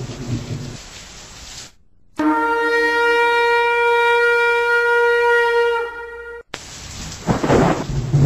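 Rain and thunder fade out, then one long, steady horn note sounds for nearly four seconds and cuts off. Thunder rolls in again with rain near the end.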